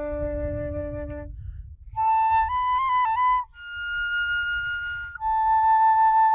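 Solo flute playing a slow melody of long held notes. A low note is followed by a short gap, then higher notes with a quick turn, and a long held note near the end. Light breath noise is audible underneath.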